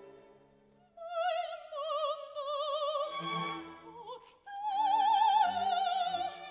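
Operatic soprano singing with wide vibrato over orchestral accompaniment. After soft held orchestral notes, the voice enters about a second in, pauses briefly past the middle, then sustains a long high note.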